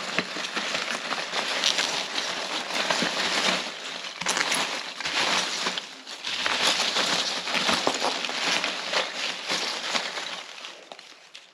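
Paper packaging rustling and crinkling as it is handled, with many small crackles, easing briefly about halfway through.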